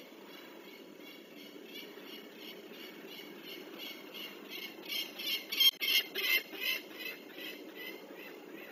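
Peregrine falcon giving a rapid run of harsh cacking alarm calls, about four to five notes a second, loudest around the middle and then fading: the alarm given at an owl near the nest. A steady low hum runs underneath.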